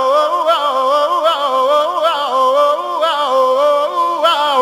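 Background music: one voice singing a melody that rises and falls, with no beat.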